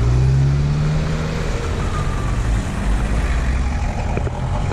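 A road vehicle's engine running steadily over road noise, its low hum dropping slightly in pitch in the first second or so.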